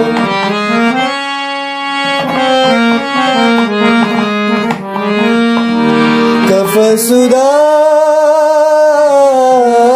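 Harmonium playing a melodic interlude of quickly changing reedy notes. About seven seconds in, a long sung note with a slowly wavering pitch comes in over it.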